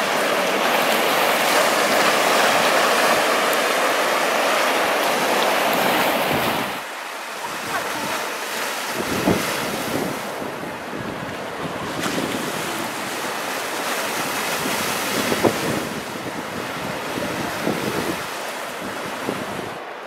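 Sea waves: a loud steady rush of surf. About seven seconds in it drops suddenly to a quieter wash of waves breaking and splashing among shoreline rocks, with a few sharper splashes.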